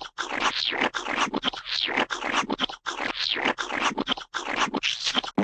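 Paint squirt sound effects: a rapid run of short, wet squirts, about three a second, each with a brief gap between.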